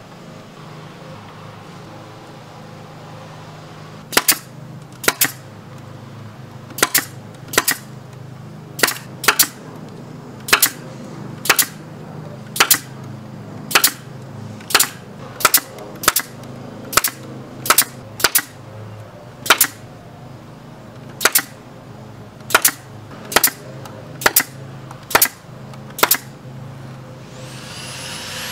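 Spring clamps snapping shut one after another onto the edge of a wooden wall frame: about twenty sharp clacks, roughly a second apart. Near the end a belt sander starts up with a rising whine.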